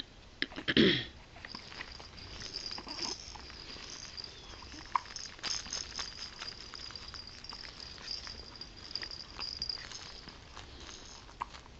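Baby hiccuping: one short, loud voiced hiccup about a second in, followed by small clicks and mouth noises, with a faint steady high tone underneath.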